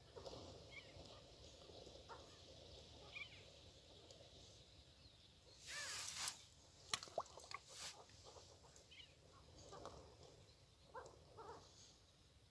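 A flock of sandgrouse calling as it flies over, with scattered short chuckling calls throughout and a louder burst of calls and rushing noise from about six to eight seconds in.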